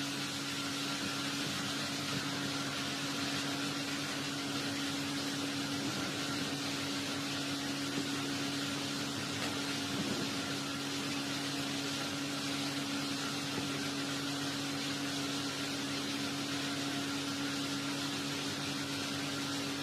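A steady hum with an even hiss underneath, unchanging throughout, with no voice or music.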